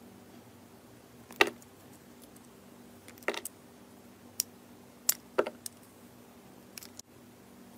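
Utility knife blade cutting chunks off a firm yellow block: a series of short, crisp snapping clicks as each cut goes through, the loudest about a second and a half in, over a faint steady hum.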